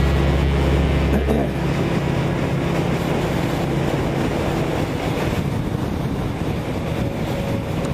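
Honda CBR600RR inline-four engine running at a steady cruise, mixed with wind and road noise rushing over the microphone. A deep low hum drops away about a second and a half in.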